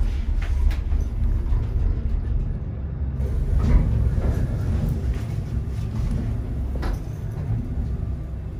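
Chairlift station machinery rumbling deeply and steadily as the chair comes into the station, with a few short clacks and knocks, the loudest about halfway through.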